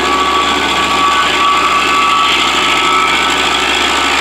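Shaver SC-50 stump grinder running steadily under tractor power: the engine and the spinning cutter wheel make a constant mechanical din with a steady high whine over it.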